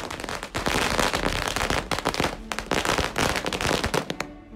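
A string of firecrackers going off in a rapid, dense crackle of bangs for about four seconds, with a couple of brief lulls, then stopping abruptly.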